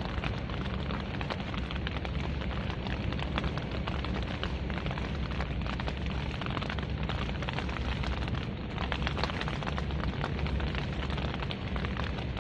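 Wind buffeting the microphone: a steady low rumble with crackling gusts.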